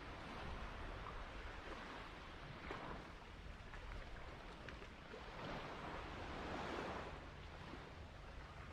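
Faint ocean surf washing in and out, a hiss that swells and ebbs several times, loudest about two-thirds of the way through.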